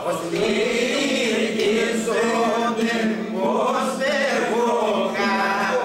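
Several men singing a Greek folk song (dimotiko) together, their voices rising and falling over one steady held drone note.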